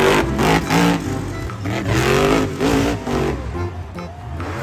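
Monster truck's supercharged V8 engine revving hard through a jump, its pitch rising and falling, with music in the background.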